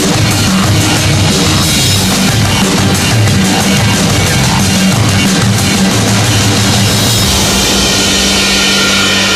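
Loud rock backing music with a driving drum kit and heavy guitars; near the end the beat thins out, leaving held chords.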